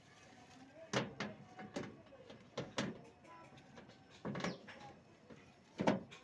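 A series of irregular knocks and clatters, about seven in all, some in quick pairs, as of parts or tools being handled during repair work.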